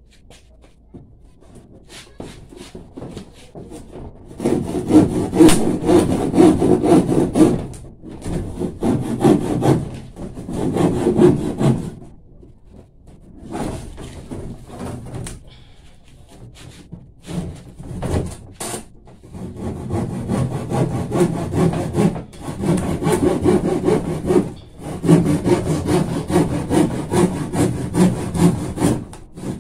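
Handsaw cutting a sheet of plywood with rapid back-and-forth strokes. A few light starting strokes come first, then the cutting picks up about four seconds in and goes in several runs with short pauses between them.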